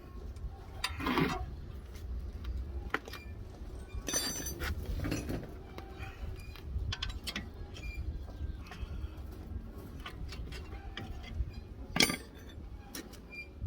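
Scattered metallic clinks and knocks of steel hand tools and brake parts being handled, with a few louder clanks, over a faint steady low rumble.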